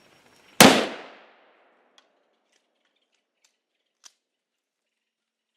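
A single hunting-rifle shot, sharp and loud, with a short trailing echo. Two faint clicks follow, at about two and four seconds in.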